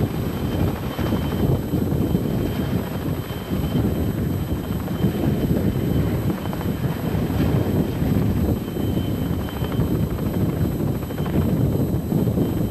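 Logging helicopter running, a steady dense rotor chop with a thin high whine over it.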